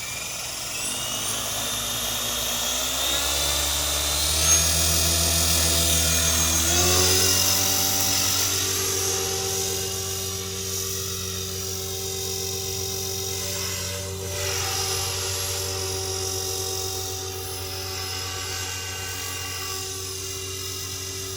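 Blade Fusion 480 electric RC helicopter spooling up: the motor whine and rotor hum rise in pitch over the first seven seconds or so, then hold steady as it flies.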